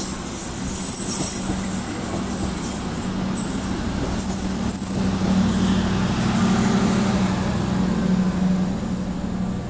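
Passenger train coaches rolling slowly past on a station track, with a steady low engine hum and a thin high whine. The hum swells from about halfway as the train's louvered generator car comes past.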